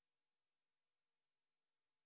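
Near silence: an essentially empty sound track with only a very faint steady hiss.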